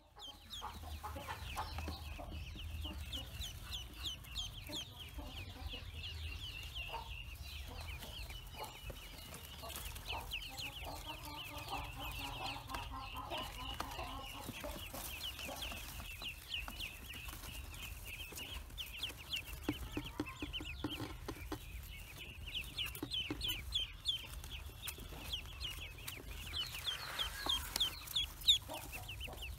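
A box full of newly hatched ducklings peeping without pause: many high, short, downward-falling peeps overlapping one another.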